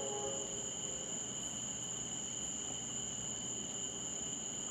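Steady chorus of night-singing insects: a continuous high-pitched drone at two pitches, unbroken, over a faint low hiss.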